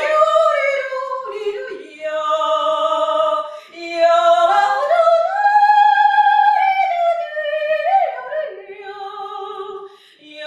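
A solo voice singing slow, long held notes that step up and down in pitch, with the highest note held in the middle and short breaks between phrases, fading near the end.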